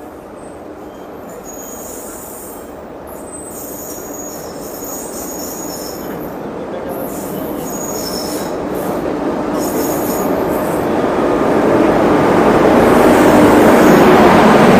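Electric-locomotive-hauled passenger train, a WAP-7, running into a station and growing steadily louder as it nears and passes close by. Short high-pitched wheel squeals come and go through the first two thirds, under a rising rumble that is loudest near the end.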